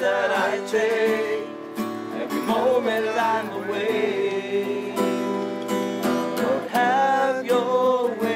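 Music: a singing voice over steady instrumental accompaniment.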